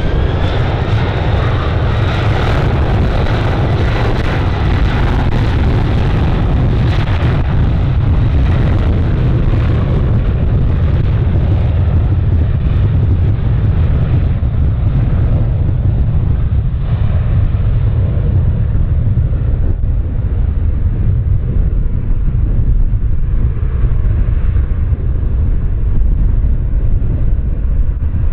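Heavy wind buffeting on the microphone throughout, with an airliner's engine noise fading away over the first half.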